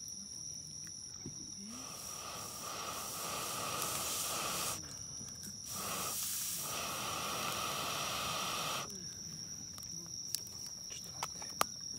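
Air blown into the side of a burning Swedish torch log to fan the fire: two long hissing blows of about three seconds each, starting a couple of seconds in, with a one-second pause between them.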